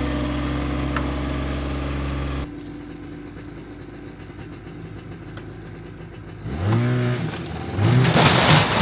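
An engine running steadily, cutting off abruptly about two and a half seconds in. Near the end come sounds that bend up and down in pitch and a loud burst of noise.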